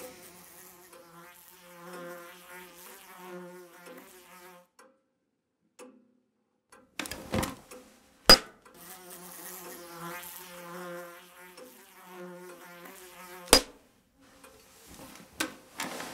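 A steady, pitched buzzing drone with wavering overtones. It breaks off twice, and sharp clicks cut in about seven, eight and thirteen and a half seconds in, the one about eight seconds in the loudest.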